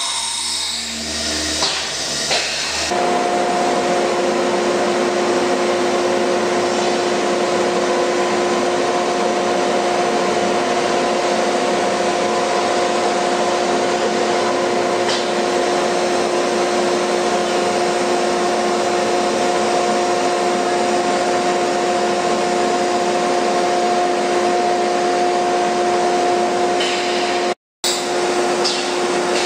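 ATC 1325 CNC router's equipment switched on and running: a steady airy rushing with a steady hum in several pitches cuts in about three seconds in and holds even, with a brief break near the end.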